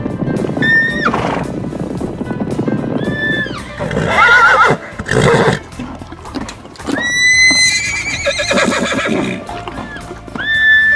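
Horse neighing and whinnying, with wavering calls about four seconds in and again about eight seconds in, over background music.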